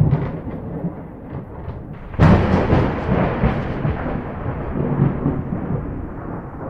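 Thunder: a low rolling rumble, then a sharp crack about two seconds in that fades into a long rumble.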